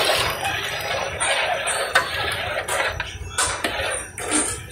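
A metal ladle stirring macaroni in a large metal pot of boiling water, knocking and scraping against the pot irregularly over the bubbling of the water.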